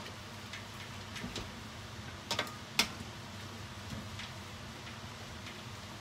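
Wooden spatula knocking and scraping against a stainless steel pot as noodles and vegetables are tossed: a few light clicks, the loudest a double knock a little past two seconds in and another just before three seconds, over a steady low hum.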